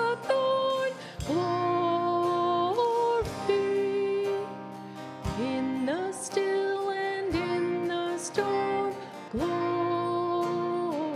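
Live worship band performing a hymn: voices singing long held notes over strummed acoustic guitar, with electric guitar and keyboard.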